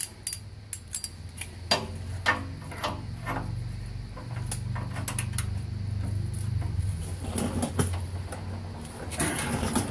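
Sharp metal clinks of a socket and wrench being fitted onto a heat-loosened exhaust oxygen sensor to break it free, over a low steady hum.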